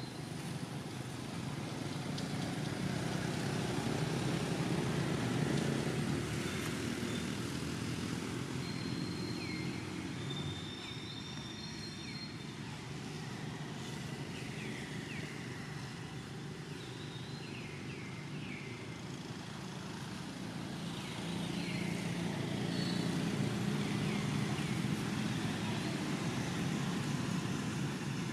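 Low rumble of passing motor traffic, swelling about four seconds in and again for most of the last third.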